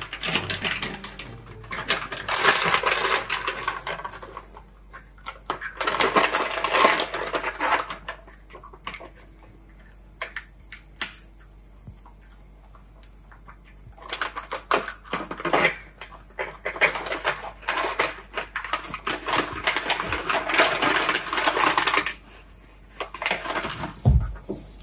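Plastic snack bag crinkling and rustling in long bursts as a young macaque paws at it and reaches inside, with a quieter stretch of a few seconds in the middle.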